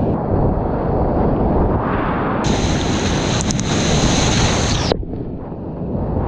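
Loud roar of whitewater rapids rushing around a kayak, with wind and spray buffeting the microphone. The hiss changes abruptly about two and a half seconds in and again about five seconds in, turning briefly duller and a little quieter.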